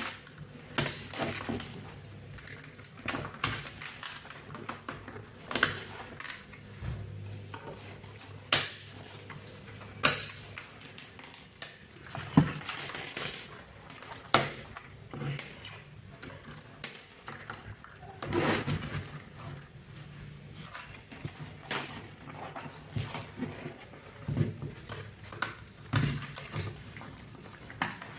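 Plastic keycaps of a mechanical keyboard being handled, clicking and clacking at irregular intervals.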